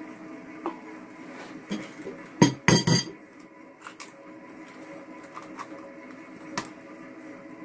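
An egg cracked against a bowl's edge: three sharp knocks in quick succession a little over two seconds in, with lighter clinks and taps of kitchenware before and after.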